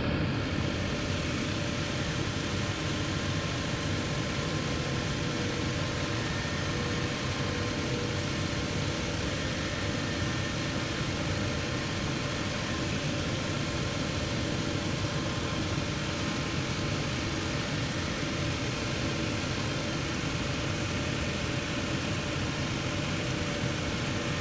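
Cobbler's shoe finishing machine running steadily, its sanding belt smoothing the rough-cut edge of a rubber lug sole and midsole pressed against it.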